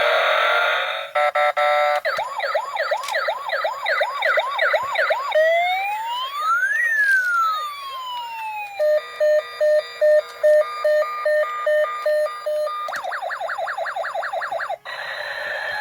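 Toy police vehicle's electronic siren sounding, cycling through several patterns: a quick repeating wail, then one slow rise and fall, then a stepped beeping tone, then a quick wail again.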